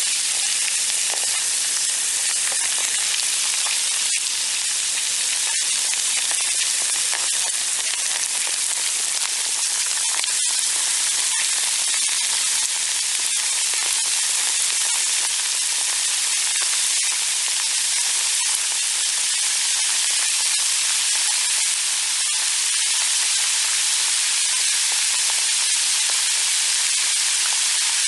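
Acid effervescing: a steady fizzing hiss, with faint crackles of tiny bursting bubbles.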